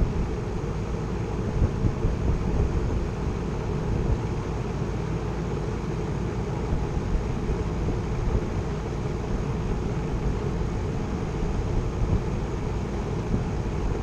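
Heat pump outdoor unit running in heating mode, its compressor and condenser fan making a steady low hum and rush while the head pressure slowly builds.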